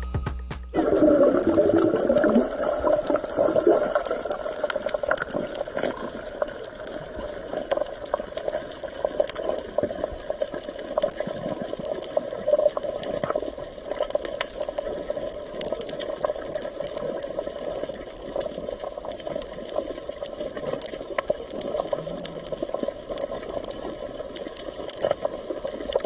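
Underwater sound among coral: a steady watery hiss and bubbling with many faint scattered clicks, louder for the first couple of seconds.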